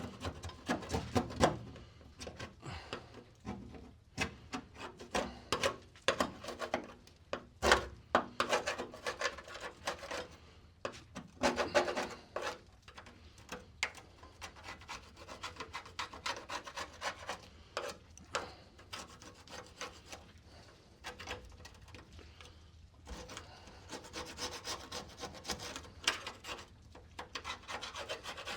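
Hand scraping and rubbing of thick old coating off a steel car chassis: irregular rasping strokes, some short and sharp, stopping and starting.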